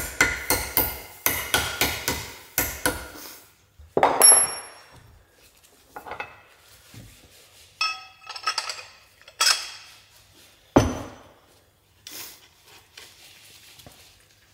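Hammer blows on a steel bus-engine connecting rod held in a bench vise, knocking free a stubborn big-end bearing shell: a quick run of ringing metal strikes for about three seconds, one harder ringing strike around four seconds in, then scattered clinks and knocks of the metal parts being handled, with a heavy knock near the end.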